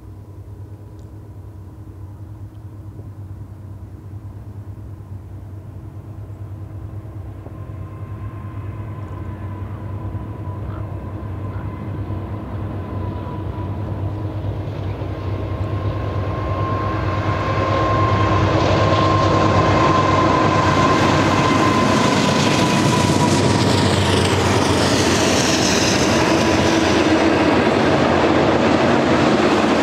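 Two BNSF GE ET44C4 diesel locomotives heading a double-stack container train approach and pass, their engines running and growing steadily louder for about 18 seconds, with a faint thin whine that fades out. The double-stack cars then roll by with a steady rush of wheels on rail and some clickety-clack.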